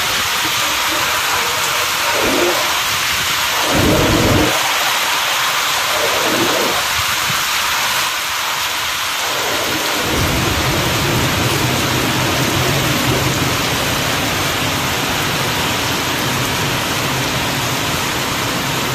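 Added rain sound effect: a steady hiss of heavy rain, with short low rumbles in the first half and a continuous low rumble from about halfway on.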